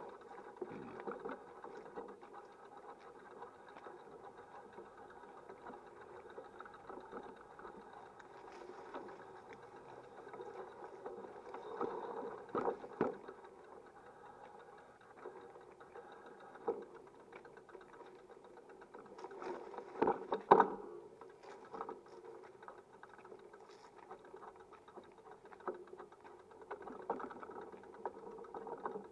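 A small motor vehicle's engine running steadily while moving over cobblestones, with a few sharp knocks and rattles about 12 and 13 seconds in and a louder pair about 20 seconds in.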